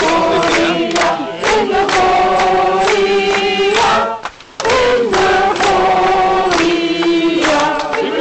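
A group of men and women singing a song together, with long held notes and a brief pause about four seconds in.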